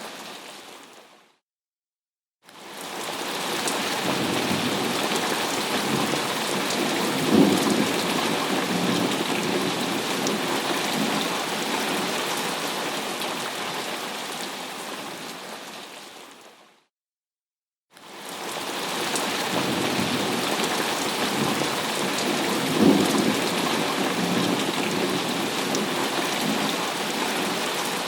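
Thunderstorm: steady heavy rain hiss with rolling thunder rumbling under it, swelling with a sharper crack about a third of the way in and again near the end. Twice the sound fades out to a second of silence and fades back in, repeating the same loop of storm sound.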